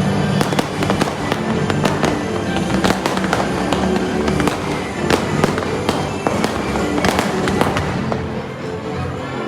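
Fireworks going off: many sharp bangs and crackles in quick, irregular succession, with music playing underneath.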